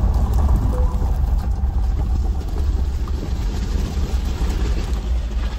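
Mercedes-Benz G-Class driving slowly over a gravel track, heard from inside the cabin: a steady low engine rumble with tyre and gravel noise.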